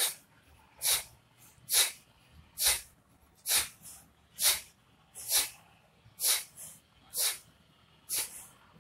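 Ten forceful, sharp exhalations of breath, about one a second, each a short whoosh: bhastrika pranayama (bellows breath), the breath thrown out in rapid strokes.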